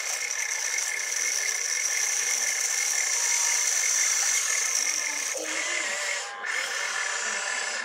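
Small electric motors and gearboxes of an RC excavator whining steadily as the boom and bucket dig, dropping away briefly about six seconds in.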